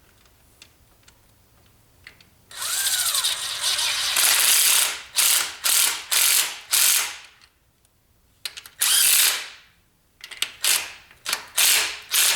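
Ratchet wrench clicking through quick back-and-forth strokes, in three spells with short pauses between.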